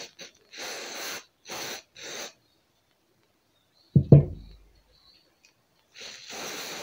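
Short hisses of an aerosol cleaner sprayed through a straw nozzle onto a steel oil drain bolt, three bursts in the first two seconds or so. About four seconds in comes a loud dull thump, the loudest sound, as the bolt is set down on the paper-covered bench, and near the end a longer hiss as the copper drain washer is sprayed.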